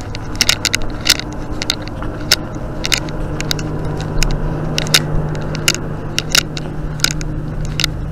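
Irregular clicks, crackles and scrapes of clothing rubbing against a chest-worn spy pen camera's microphone as the wearer walks, over a steady low hum.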